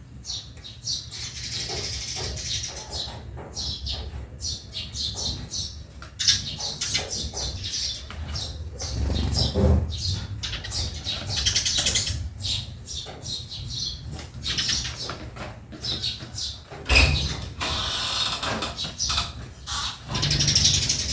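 A flock of Eurasian tree sparrows chirping and chattering without a break: many short, high chirps overlapping, over a low background rumble.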